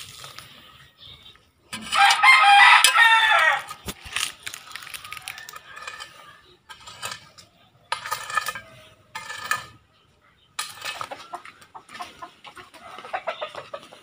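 A rooster crows loudly about two seconds in, followed later by a few shorter chicken calls.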